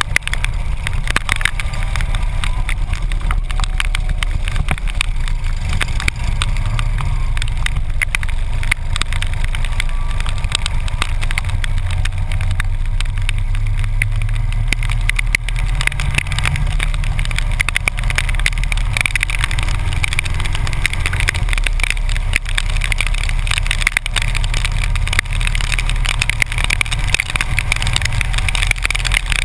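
Harley-Davidson V-twin motorcycle being ridden at road speed in heavy rain: a steady low engine rumble under constant wind noise and the hiss of a wet road, with raindrops hitting the camera as many small clicks.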